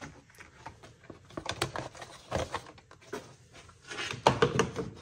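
Scattered light clicks, knocks and rustles of handling, with a louder cluster of knocks about four seconds in.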